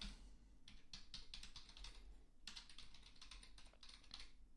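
Computer keyboard typing, faint: a short run of keystrokes near the start, a pause of about a second, then a longer run from about two and a half seconds in.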